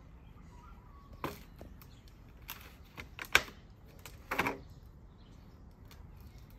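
Hollow white PVC fence pickets and rails knocking and clicking against each other as they are handled and sorted in their cardboard box: a handful of separate sharp knocks and scrapes, the loudest a little past a third of the way in.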